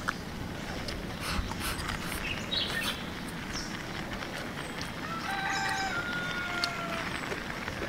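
Rural outdoor ambience with small birds chirping, and a rooster crowing about five seconds in, a drawn-out call that steps in pitch. A few light clicks and taps are heard between them.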